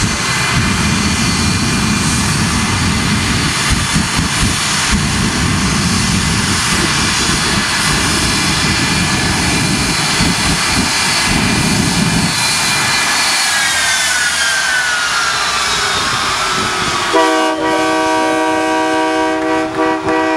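Shockwave jet truck's three jet engines running with a loud rumble and a high turbine whine; about two-thirds through the rumble drops away and the whine falls steadily in pitch as the engines spool down. Near the end a horn sounds, a steady chord held for several seconds.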